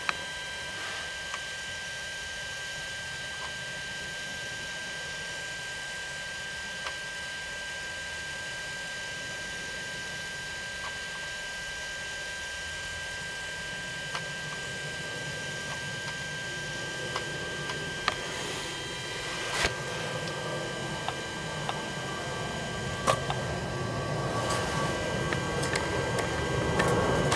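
Steady high-pitched whine with a low hum from a powered-on DJI Phantom 4 Pro V2.0 drone sitting on the ground, with a few light clicks. A rushing noise builds over the last several seconds.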